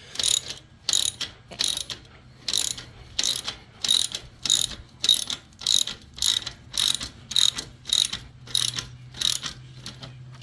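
Hand ratchet wrench cranking an exhaust pipe clamp tight on a slip-on muffler: about fifteen short strokes at a steady pace of under two a second, each a quick burst of pawl clicks, stopping shortly before the end.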